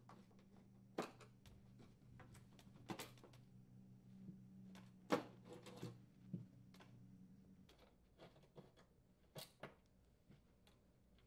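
Faint, scattered clicks and taps of metal on metal: a screwdriver backing out oven door hinge mounting screws and the steel hinges being worked loose and handled on a padded blanket.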